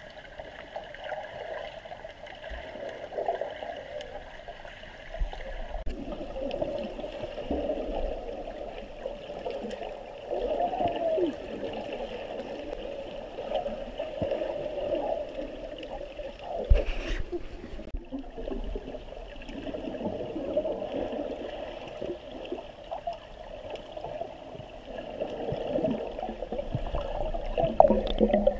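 Water gurgling and splashing, with faint voices.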